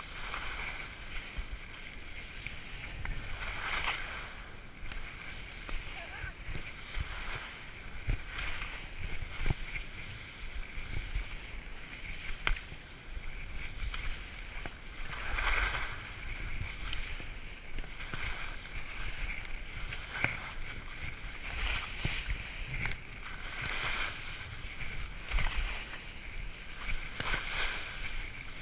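Skis swishing and scraping through soft, wet spring snow, a surge of swoosh with each turn every few seconds, over low wind rumble on the camera's microphone.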